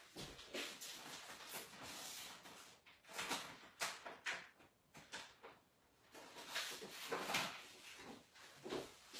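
Sheets of paper being handled: faint rustling and sliding in several short bursts, with a quieter pause around the middle.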